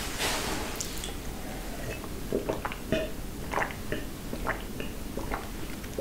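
Drinking water from a glass mug: a brief hiss at the start, then a run of short, wet gulps and mouth clicks, about two a second, from about two seconds in.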